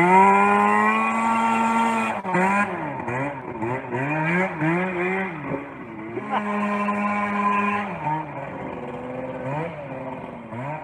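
Yamaha snowmobile engine in a go-kart revving hard during donuts on grass: the pitch shoots up at the start and is held high, then dips and climbs again several times, is held high again for a second or so, and then eases off and grows quieter near the end.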